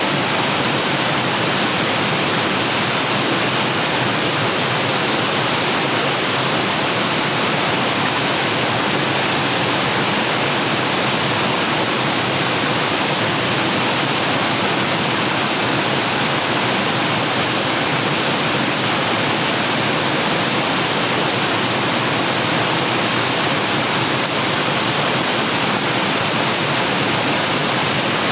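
Steady, even rushing noise like flowing water, with no breaks or separate sounds in it.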